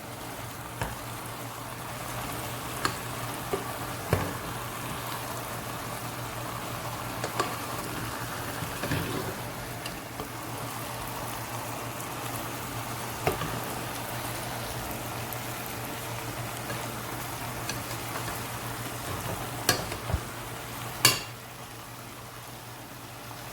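Chicken and vegetables sizzling in a hot pan while being turned, with occasional short knocks and scrapes of the utensil against the pan. A louder pair of knocks comes near the end, after which the sizzle is a little quieter.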